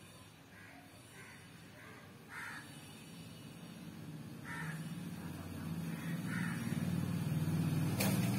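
Crows cawing several times in short single calls. Under them a low drone builds steadily through the second half, loudest near the end, with a sharp click about eight seconds in.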